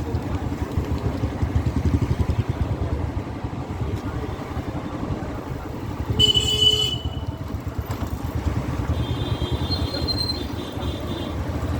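Motor vehicle engine running with a low, fluttering rumble, and a short horn toot about six seconds in.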